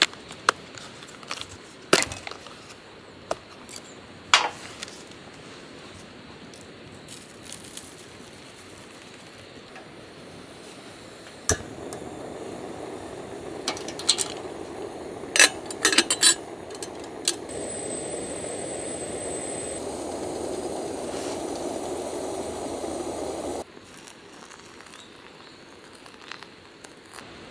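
Camp cookware being handled, with scattered clinks and knocks. Then a small gas canister stove burns under a stainless kettle: a steady rush that starts with a click about eleven seconds in and stops abruptly about twelve seconds later, with a few more clinks near its start.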